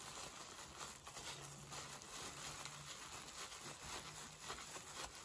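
Faint crinkling and light patting of disposable plastic gloves as hands roll and press a kimbap roll.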